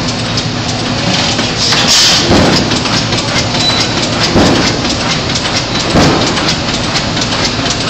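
Pattin Ekonomy 6 HP hit-and-miss oil field engine running nicely, with a heavier firing beat about every one and a half to two seconds and a steady mechanical clatter of clicks between the beats. A brief hiss comes with the beat about two seconds in.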